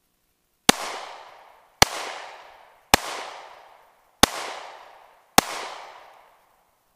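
FN Five-seveN pistol firing five shots of 5.7x28mm SS195LF, a little over a second apart, each crack followed by an echo that dies away over about a second.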